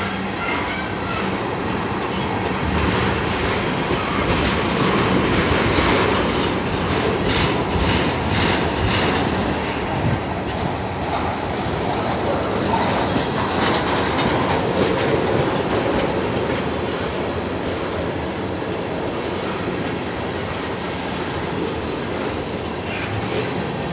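Freight train of tank cars rolling past with a steady rumble, steel wheels clicking over rail joints in bunches, the clicks thickest in the first half.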